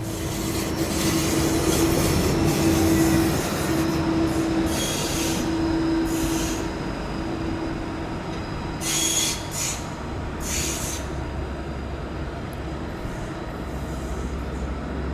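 G:link Bombardier Flexity 2 light-rail tram running slowly through a curve, with a steady motor hum that fades out about halfway through. Its wheels screech against the curved rails in several short bursts.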